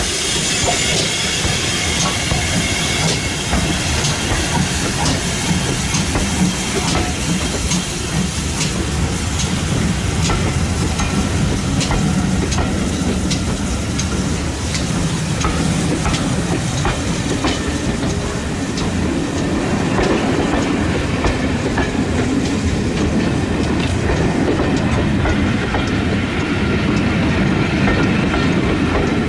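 Steam-hauled passenger train pulling away past the listener: the locomotive moves off, then the coaches roll by close at hand, their wheels clicking over the rail joints.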